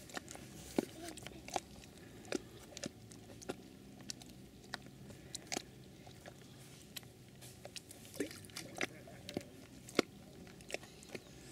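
Faint, irregular clicks and crackles, roughly one a second, over low background hiss.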